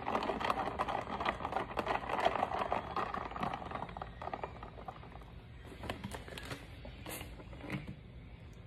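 Ice cubes clattering against the inside of a tall plastic tumbler of iced coffee as it is stirred with a straw. The rattle is busy for the first three seconds or so, then dies down to a few scattered clinks.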